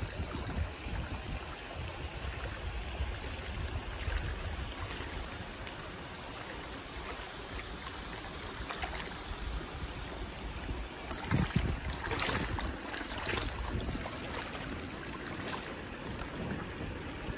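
Wind buffeting the microphone over small waves lapping at the lake shore, with a few sharper, louder sounds about eleven to thirteen seconds in.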